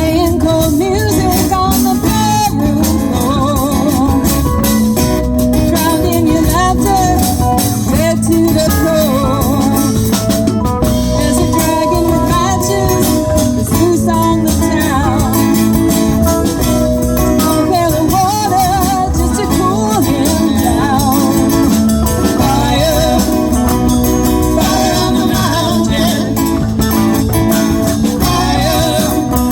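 A live rock band playing, with guitar and percussion over a steady beat and a wavering melody line above.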